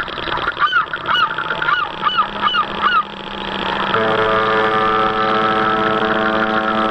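Geese honking, a quick series of about seven calls in the first half. From about four seconds a steady pitched tone sets in and holds, louder than the honks.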